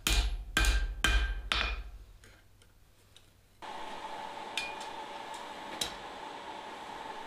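Hand hammer striking a hot steel bar on an anvil: four ringing blows about two a second, then a pause. From about halfway through, a steady hum with a couple of light metallic clicks.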